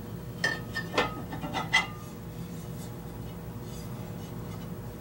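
Audio-Technica AT-LP120's metal turntable platter clinking against the spindle and plinth as it is lowered into place: a handful of sharp metallic clinks, some briefly ringing, in the first two seconds, then only a faint steady hum.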